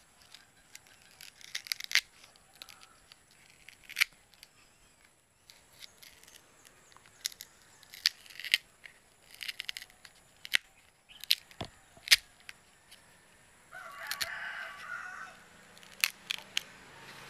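Green banana leaf stalk being worked by hand into a toy gun: irregular sharp snaps and clicks as the stalk is bent and broken, with a brief rasping tear about fourteen seconds in.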